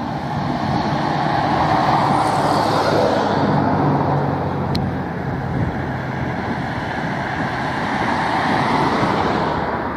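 Siemens Combino Plus low-floor tram running past, a steady rumble of wheels on rail and traction drive that swells as it comes closest, with a single sharp click about five seconds in.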